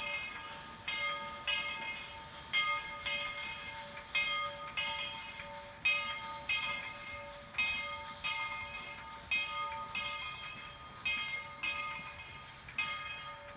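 Steam locomotive's bell ringing steadily, struck at uneven intervals of about half a second to a second, each strike ringing on into the next.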